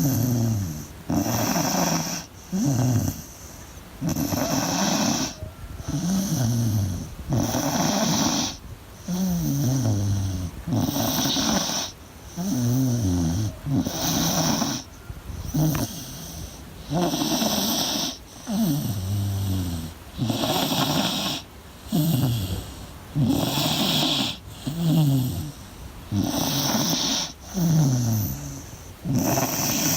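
Beagle snoring in a steady rhythm of about one snore every second and a half, each snore sliding down in pitch.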